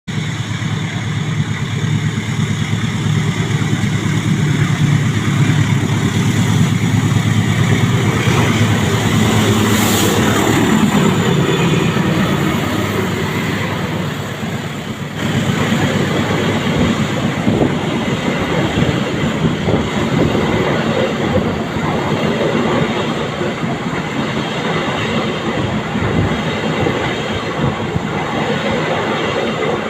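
Argo Wilis passenger train passing at speed: a steady low engine rumble in the first half, then the carriages' wheels clattering over the rail joints after about 15 seconds, with one sharp bang about 10 seconds in.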